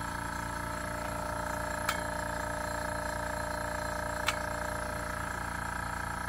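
TimberTech airbrush compressor with a tank running steadily, a very quiet, fast even pulsing hum as it builds air pressure in its tank. Two brief clicks, about two and four seconds in.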